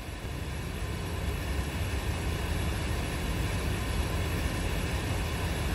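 Steady hiss and low rumble of a wiretap recording playing back with no voices on it: a blank stretch in the tape that the listeners put down to a fault or to someone passing by.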